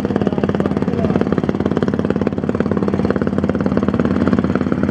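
An engine running steadily with a rapid, even beat.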